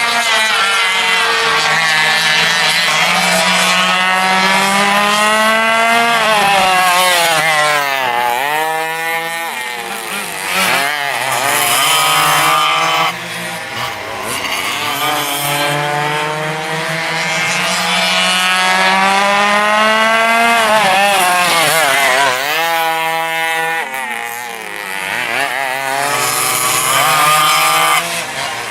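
Two-stroke engines of vintage dual-engine sidewinder racing karts running at race speed. The revs climb for several seconds and then drop off sharply, twice: accelerating down the straights and backing off into the turns.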